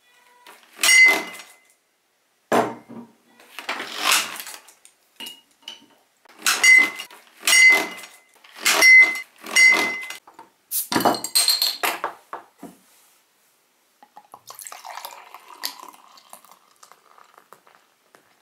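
Two glass beer bottles clinking together in a toast, about ten ringing clinks over the first twelve seconds. Near the end, a softer rushing sound of beer being poured into a glass.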